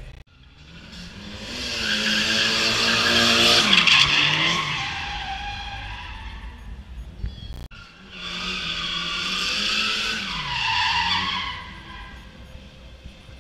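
Drift car sliding past twice with its tyres screeching and its engine revving, the engine pitch dropping as it goes by; the first pass, about four seconds in, is the loudest.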